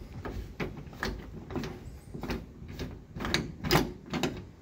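Front coin panel of a Dixie-Narco soda vending machine being worked by hand: a series of about nine hard clacks and knocks, roughly two a second, unevenly spaced.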